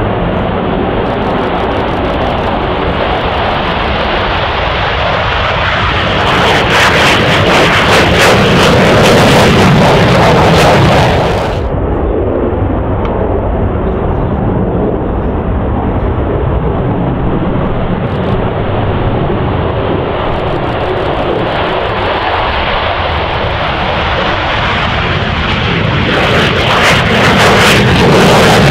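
Eurofighter Typhoon fighter jets taking off, their twin turbofan engines running at full thrust in a loud, continuous rush. The sound swells and brightens about six seconds in, cuts off abruptly to a duller rush near twelve seconds, and swells again near the end.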